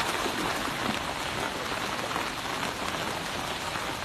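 Steady hiss of rain falling, mixed with the rush of fast-flowing floodwater.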